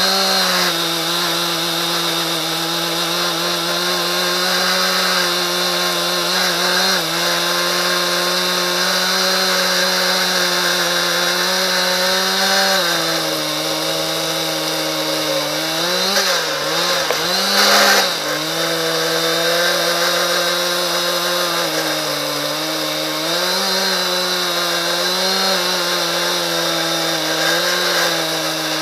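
Husqvarna 372 XPG two-stroke chainsaw, on a 50 cm bar with a ripping chain in a chainsaw mill, running at high revs under load as it rips lengthwise through a dry, hard ash log. The engine note holds steady, then dips and wavers briefly a little past halfway before recovering.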